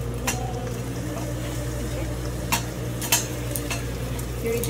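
A wooden spoon stirs and scrapes whole spices (cinnamon sticks, peppercorns and cloves) as they toast in a dry steel skillet, with a few sharp knocks of spoon and spices against the pan. Under it runs a steady low hum.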